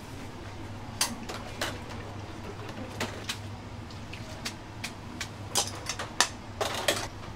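Kitchen clatter of a ceramic soba bowl and stainless steel strainer baskets knocking against the steel noodle boiler and counter: a string of sharp clinks and knocks, coming thicker near the end, over a steady low hum.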